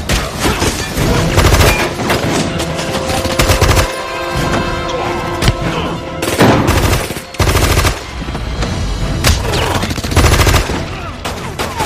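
Action-film soundtrack: repeated bursts of gunfire and sharp impacts over background music.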